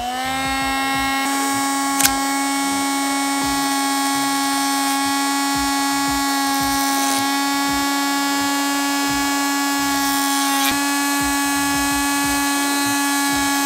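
Compact electric trim router held upright and running at full speed with a steady high-pitched whine, having just spun up. Two sharp clicks, about two seconds in and near eleven seconds.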